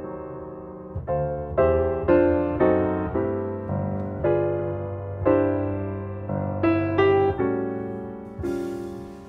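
Background piano music: a gentle melody of struck notes, about two a second, each left to fade over a sustained low bass.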